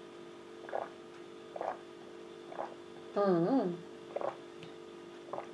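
A person tasting a drink: a few soft swallows about a second apart, and in the middle a drawn-out "mmm" of approval whose pitch wavers up and down, over a steady electrical hum.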